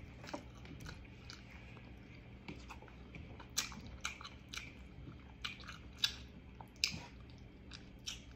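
Close-up eating sounds of a person chewing fried pompano, with irregular sharp crunching and smacking clicks, a few louder ones standing out.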